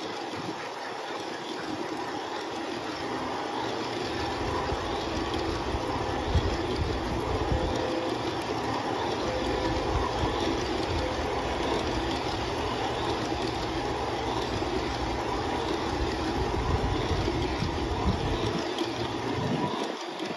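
Large-scale model freight cars rolling past at rail level: a steady rumble and clatter of metal wheels on the track. A deeper rumble comes in about four seconds in and fades just before the end.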